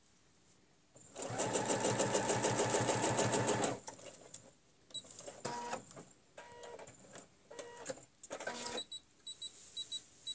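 Domestic sewing machine stitching: after a short pause it runs steadily at a rapid, even stitch rhythm for about two and a half seconds and then stops. A few short runs of stitches and light clicks follow as the work is repositioned.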